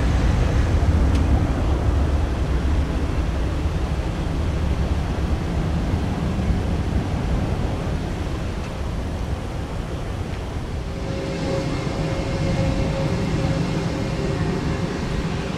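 Jet airliner's engines making a low rumble that fades as the plane moves away down the runway. About eleven seconds in, the sound changes to a steadier mix with a thin whine over a background hum.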